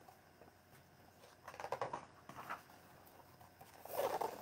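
Picture-book pages being turned and the book handled: soft paper rustling in two short spells, about a second and a half in and again, louder, near the end.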